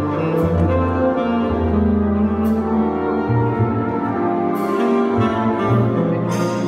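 Jazz big band playing a slow, sustained passage: brass and saxophones over a moving bass line, with short bright accents about every two seconds.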